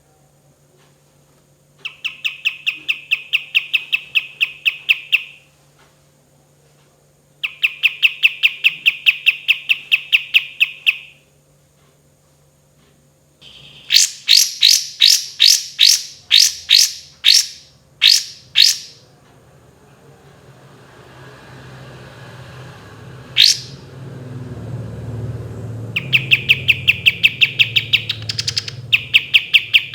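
Kapas tembak songbird singing long rolls: fast trills of sharp, evenly repeated notes, about six a second, in bursts of several seconds. In the middle comes a run of louder, slower notes. A low rumble rises behind the song in the second half.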